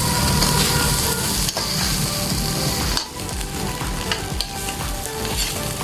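Fried rice sizzling in a frying pan while it is stirred and scraped with a ladle or spatula, with scattered light scrapes over the steady sizzle. The sizzle drops a little in level about three seconds in.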